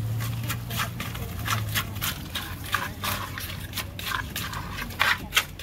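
Wooden pestle pounding and tossing papaya salad in a clay mortar: a quick, irregular run of wet knocks, two or three a second, over a steady low hum.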